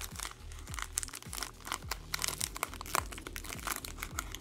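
Foil wrapper of a Yu-Gi-Oh! mega pack crinkling in a run of sharp crackles as fingers peel it open, over background music with a steady beat.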